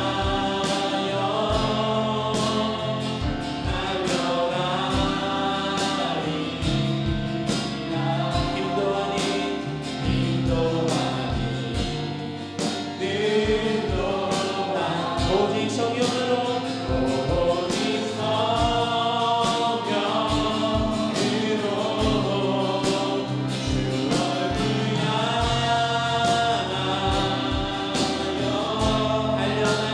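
Korean contemporary worship song sung by a mixed group of men and a woman in unison, over acoustic guitar and a band with a steady drum beat.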